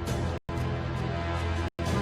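Background music with a strong low bass line, cut off abruptly twice for a split second, about half a second in and near the end.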